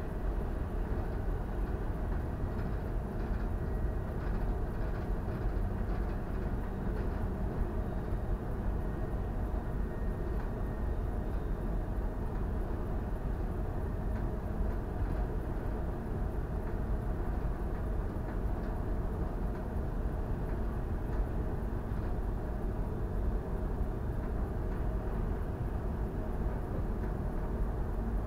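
Steady low rumble and rushing noise of a bulk carrier under way at sea, with a faint steady hum over it and no change throughout.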